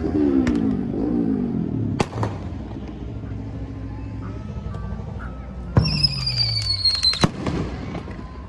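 Fireworks going off: a sharp bang about two seconds in, then a high whistle that starts and ends with a bang, about a second and a half long. At the start a low pitched sound falls in pitch.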